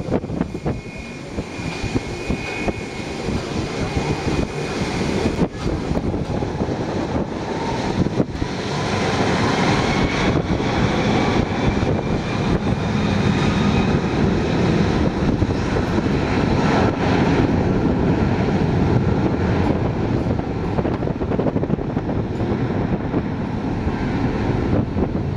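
Airbus A330-300's Rolls-Royce Trent 700 turbofan engines spooling up for takeoff: the engine noise grows louder about eight seconds in, with a faint rising whine, then holds steady at high power.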